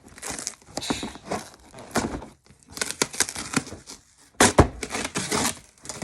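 A taped cardboard box being pulled and torn open by hand, with irregular crackles of tape and cardboard and short knocks.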